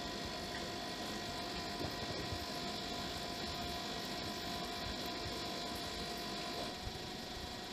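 Steady electrical hum with hiss, carrying a few faint small ticks.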